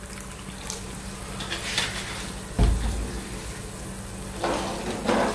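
Fish sauce poured from a bottle into a pan of simmering coconut soup, over the steady bubbling of the soup, with a low hum underneath. A single low thump about two and a half seconds in.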